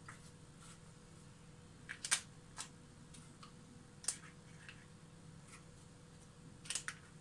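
Faint scattered clicks and taps of apple slices being taken from a small glass bowl and laid on batter in a paper-lined baking tray, the loudest about two seconds in and a close pair near the end, over a low steady hum.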